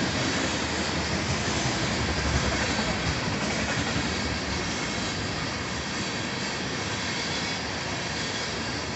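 Freight train of tank cars rolling past, a steady noise of steel wheels running on the rails.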